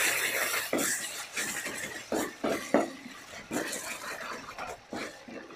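A spatula scraping and knocking against a cooking pot as pork is stirred with freshly added spices, over a light sizzle that fades after the first second or so. It is a string of irregular scrapes and clacks.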